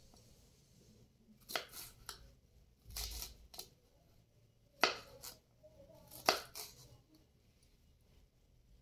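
Knife cutting through green bell pepper on a wooden chopping board: about six sharp cuts at uneven intervals, the loudest a little before five seconds in and just after six.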